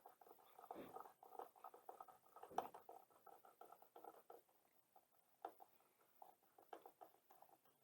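Faint, irregular small clicks and scrapes of a Phillips screwdriver turning out a tail-light screw on a plastic-trimmed car body. The clicks are busiest in the first few seconds and grow sparse after that.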